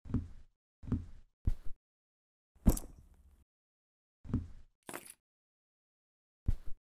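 Irregular footsteps and knocks, each a short thud with dead silence between them. The loudest is a sharp knock nearly three seconds in.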